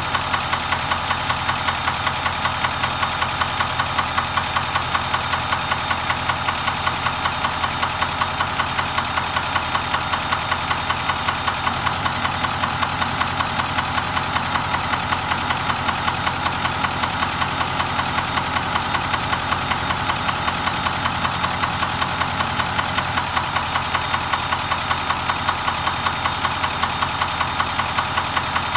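Nissan Titan XD pickup's V8 engine idling steadily with a regular, repeating knock, an abnormal engine knock on a truck of only 13,000 miles.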